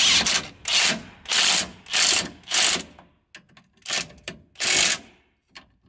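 Cordless impact wrench with a 15 mm socket hammering the caliper mounting bolts tight into steel in short bursts. There are five quick bursts in the first three seconds, then two more after a pause.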